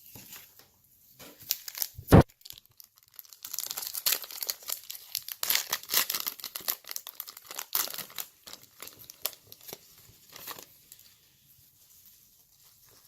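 A sharp thump about two seconds in, then a foil trading-card pack being torn open and its wrapper crinkling for several seconds.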